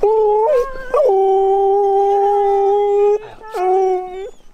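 A talkative husky howling in long, steady-pitched calls: a short call with a jump in pitch, a long held call of about two seconds, then a shorter one near the end.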